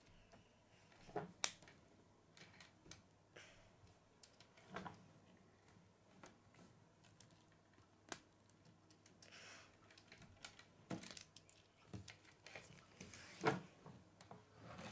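Plastic K'nex rods and connectors clicking and snapping together as pieces are handled and fitted, with scattered light clicks and two sharper snaps, one about a second and a half in and one near the end.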